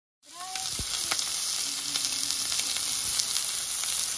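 Tomahawk chop frying in a stainless frying pan: a steady sizzle with scattered small crackles and pops, starting suddenly about a quarter second in.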